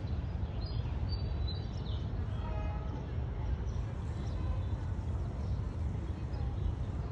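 Small birds chirping in short falling notes now and then over a steady low rumble.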